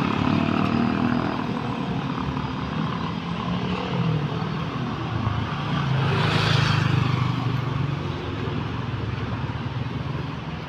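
Road traffic: a motorcycle's engine running close by at the start, with other motor vehicles going past. About six seconds in a louder vehicle passes, its engine and tyre noise swelling and then fading.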